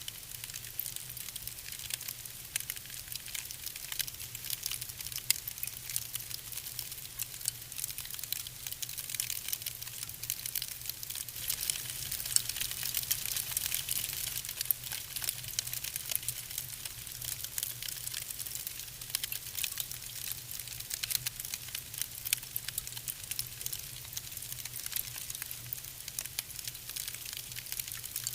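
Wood fire burning in a fireplace, with a dense run of small crackles and pops over a steady hiss.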